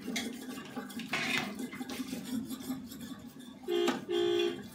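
Metal ladle stirring and scraping inside a large aluminium pot of liquid, with light clinks of metal on metal. Near the end come two short, steady pitched tones, the loudest sounds here.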